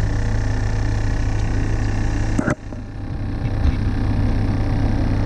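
Live-bait aerator air pump humming steadily. About two and a half seconds in its switch clicks as it is turned from low to high, and the hum drops off briefly before building back up.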